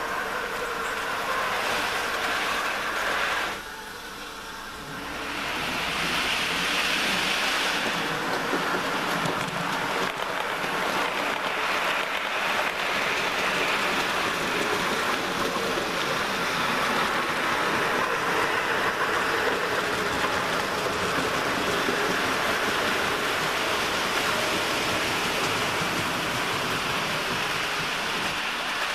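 OO gauge model train running on the layout: the steady whirr of its small electric motor and its wheels rolling over the track, dropping briefly quieter about four seconds in.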